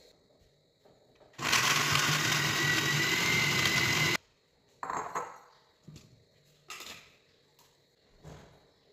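Sunhouse countertop blender running for about three seconds, chopping sliced lemongrass in water to draw out its oil, then switched off abruptly. A few light knocks and clatters follow.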